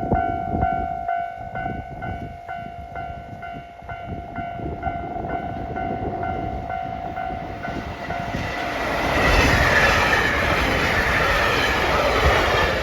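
Level-crossing alarm ringing in a steady, even rhythm as a train approaches. About eight seconds in, the train passes at speed and its loud rushing wheel and air noise swells over the bell, dropping away sharply near the end.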